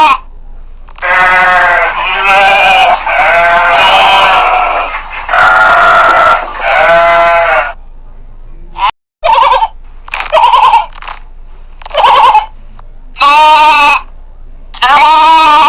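Sheep bleating, several calls overlapping in the first half. After a split-second dropout about nine seconds in come shorter, separate bleats roughly once a second.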